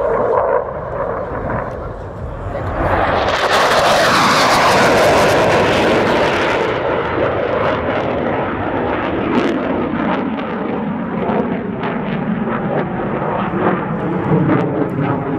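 Saab JAS 39 Gripen fighter's jet engine roaring in a low pass, swelling to its loudest about three seconds in and easing off a few seconds later into a rough, crackling rumble as the jet climbs away.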